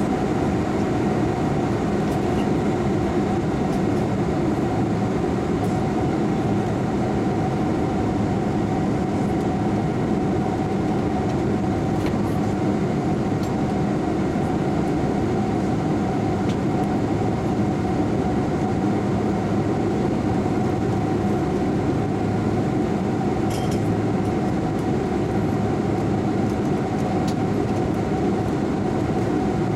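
Airliner cabin noise in flight: a steady, unchanging drone of engines and rushing air, heaviest in the low range.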